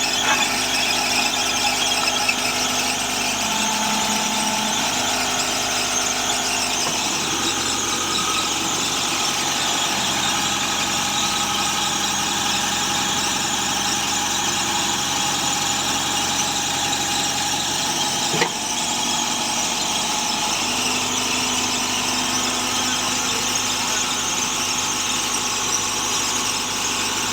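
Horizontal directional drilling machine running steadily, its engine note under a strong high-pitched whine. The machine's note shifts about 7 seconds in and again near 21 seconds, and there is a single sharp click about 18 seconds in.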